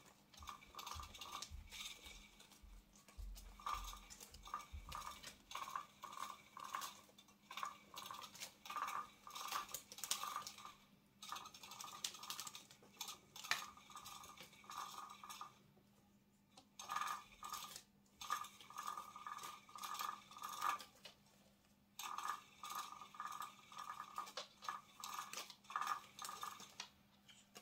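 Electric spinning butterfly cat toy running, its motor and rotating arm giving a fast clicking rattle that stops briefly a few times and starts again.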